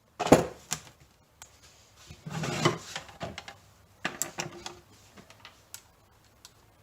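Hard objects being handled: a sharp knock, a short scraping rub about two seconds later, then several light clicks and taps.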